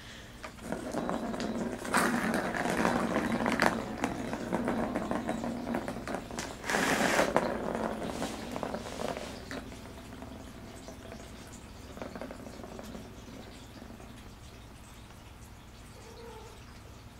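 A plastic ball rolling around the track of a circular cat scratcher toy, making a rumbling rattle with sharp knocks as it is batted. It then slowly fades as the ball coasts to a stop.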